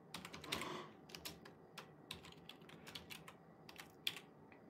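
Typing on a computer keyboard: faint, irregular key clicks in short quick runs, with a brief soft noise about half a second in.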